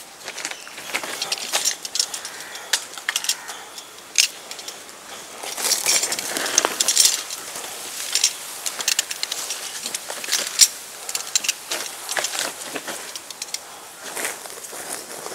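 Rope and packing being pulled and untied from a crated motorcycle: rustling and scraping with many small clicks and knocks, busier about a third of the way in and again past the middle.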